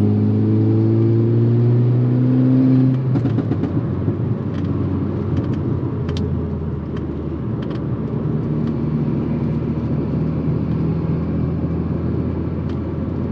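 Turbocharged four-cylinder engine of a MK6 Golf R with a custom turbo-back exhaust, rising in pitch as the car accelerates for about three seconds, then dropping off as the driver lifts. Scattered exhaust pops and crackles on the overrun follow, over a steady lower engine drone.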